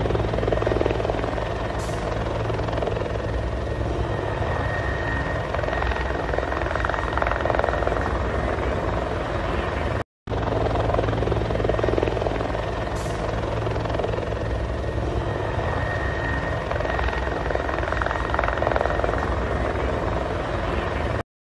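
Helicopter flying low overhead, its rotor and turbine engine making a steady loud rumble. The sound cuts out for a moment about halfway through, then picks up again.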